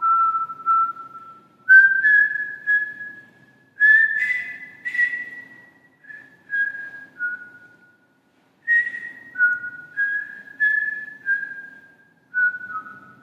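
A slow melody whistled one pure note at a time, each note starting sharply and fading, in two phrases with a short pause about eight seconds in.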